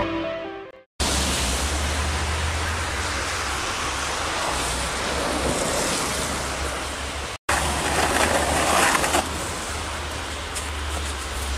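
The tail of the intro music fades out, then a steady rushing outdoor noise with a low rumble, like wind on the microphone. After a cut about seven seconds in, a plastic snow shovel scrapes snow off stone steps for about a second and a half, followed by a few light knocks.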